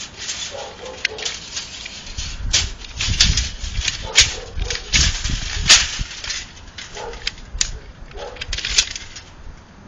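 Old rusted tape measure being pulled apart by hand: its steel blade and coil spring clack, scrape and rattle in sharp, irregular clicks, loudest through the middle, with a low rumble for a few seconds.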